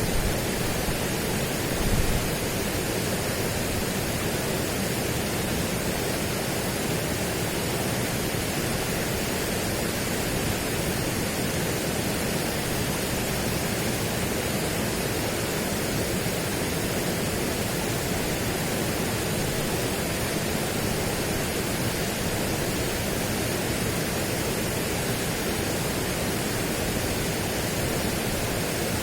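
Steady, even rushing noise that does not change, with a brief low swell about two seconds in.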